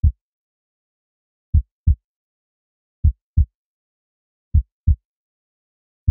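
Slow heartbeat sound effect: pairs of deep, short thumps (lub-dub) repeating about every second and a half, with silence between them.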